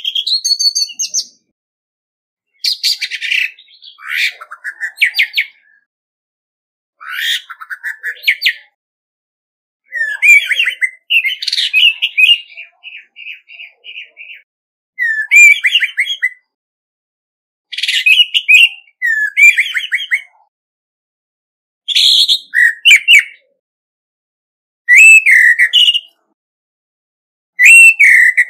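Male orange-headed thrush singing its territorial challenge song: about ten loud, varied phrases of whistles and trills, each a second or two long, with short silent pauses between. One phrase near the middle trails into a fast string of repeated notes.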